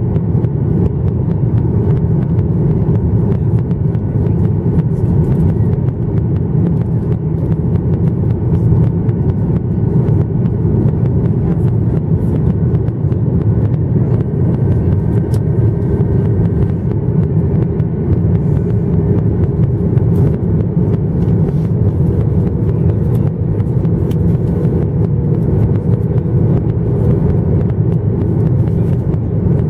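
Cabin noise inside a Boeing 737-900ER in flight: a steady, deep rumble of the CFM56-7B jet engines and the air rushing past the fuselage, even in level throughout.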